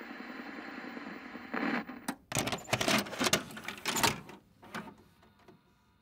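A handheld video camera being fiddled with to get it working: a steady hiss for about two seconds, then a quick flurry of clicks and knocks, and a few fainter clicks near the end.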